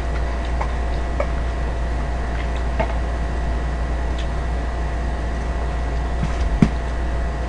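A steady low background hum, with scattered light clicks and taps from fried chicken being handled and eaten; the sharpest tap comes about six and a half seconds in.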